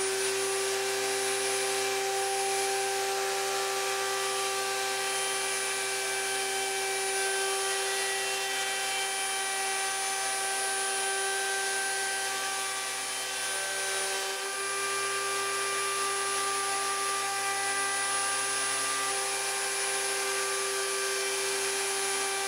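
Router in a router table running at full speed with a steady whine, its round-over bit cutting along the edge of a wooden landing net frame.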